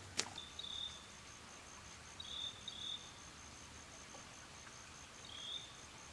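An insect chirps faintly in a steady high-pitched pulse, about five pulses a second, with four short chirping calls over it. A single footstep on a dirt path just after the start is the loudest sound.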